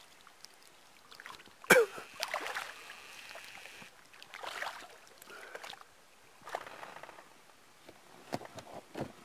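Inflatable rowing boat moving on calm water: oars dipping and swishing in uneven strokes, with water trickling. A single sharp knock about two seconds in is the loudest sound.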